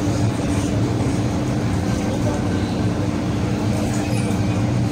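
Cabin noise inside an MTR M-train metro car on the move: a steady rumble of the running train with a constant low hum over it.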